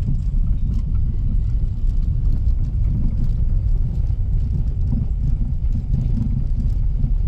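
Car tyres rolling slowly over cobblestone paving, heard from inside the cabin: a continuous, uneven low rumble with small knocks and rattles.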